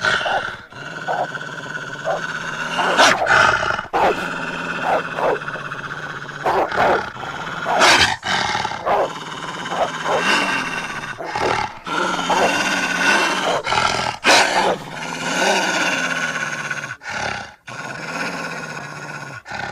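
A string of wolf and dog growls and snarls as sound effects, one short call after another with brief gaps.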